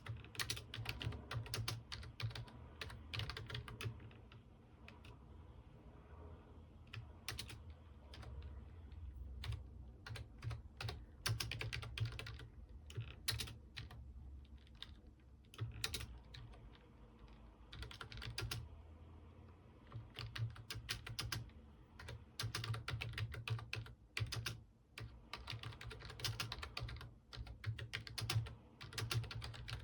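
Typing on a computer keyboard: runs of quick key clicks in uneven bursts, with short pauses between them, over a steady low hum.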